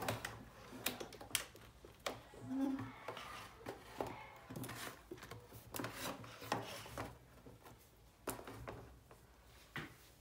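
Irregular clicks, taps and rubbing of small hard objects being handled, scattered unevenly rather than in a steady rhythm.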